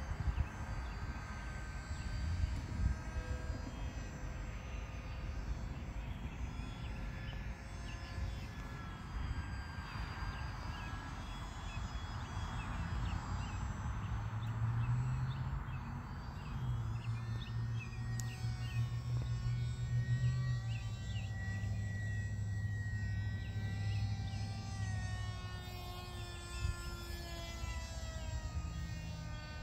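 Delta Ray One RC airplane's electric motor and propeller buzzing overhead, its pitch wavering up and down as the plane flies around, over a low rumble. A lower steady drone comes in about halfway and fades again.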